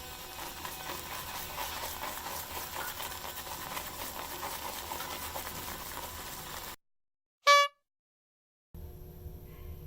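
A steady crackling, bubbling noise that cuts off abruptly about seven seconds in. After a moment of silence comes one short, sharp, pitched beep, and near the end another sound with steady tones begins.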